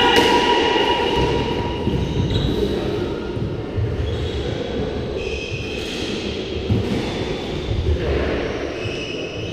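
Reverberant squash court between rallies: a steady low rumble of the hall, with a high drawn-out tone at the start that fades after about two seconds and a few faint ball thuds.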